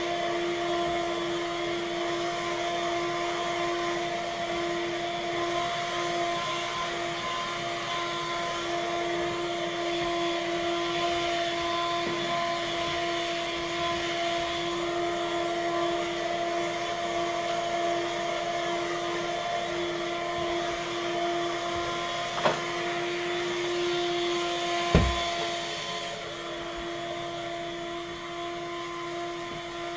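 Vacuum cleaner running steadily, its motor giving a constant pitched whine over a rushing hiss. Two sharp knocks come in the last third. Soon after the second knock the sound turns a little quieter and duller.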